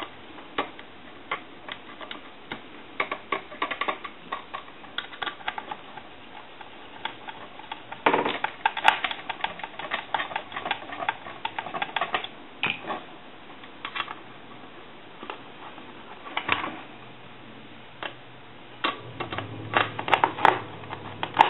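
Irregular clicks, taps and short scrapes of a Conair Metropolis telephone's parts being handled and fitted back together during reassembly.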